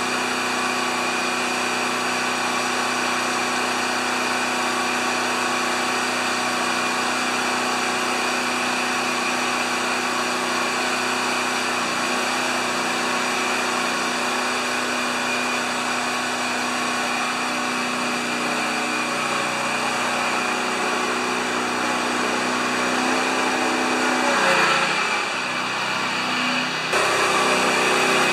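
John Deere LX178 riding mower's liquid-cooled twin-cylinder engine running steadily during a warm-up after an antifreeze change. Near the end the engine note dips and rises again, and it gets louder as the mower is driven off.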